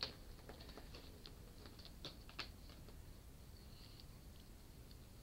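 Faint, irregular clicks and taps from kittens' paws and claws as they play on the carpet and paw at a disc player on a TV stand.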